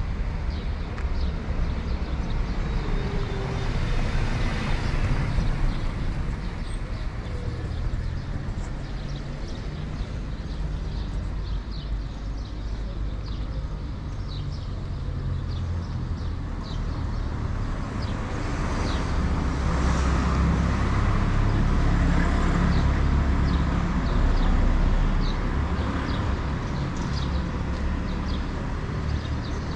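Town street ambience: traffic noise from cars on the road, swelling as a vehicle passes about four seconds in and again between about 18 and 25 seconds in, over a steady low rumble.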